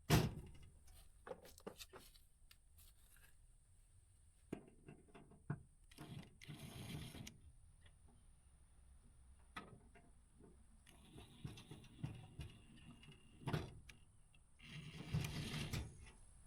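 Knocks and scraping as a toolbox is shifted into place on a pickup bed. There is a sharp knock at the start, then a few lighter knocks, and two longer scrapes about six and fifteen seconds in.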